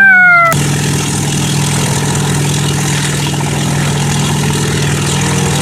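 A motor running steadily with an even hum, starting about half a second in.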